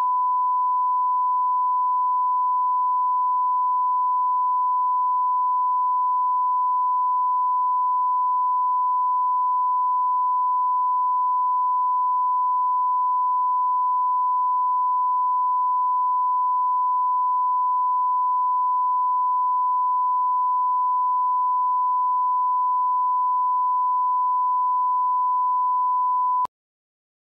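1 kHz broadcast line-up tone played with SMPTE colour bars: one steady, unwavering beep that cuts off suddenly near the end.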